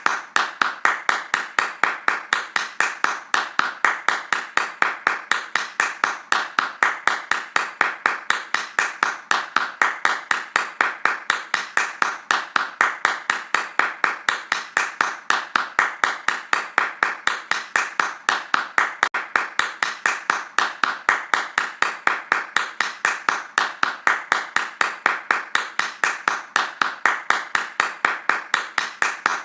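Hands clapping fast in a steady, even rhythm, about three claps a second, with no pause or change.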